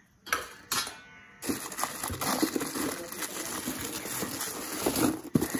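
Hands digging through ice chunks in a styrofoam ice box: two sharp knocks near the start, then a dense, steady crackle and crunch of ice and a plastic bag being handled.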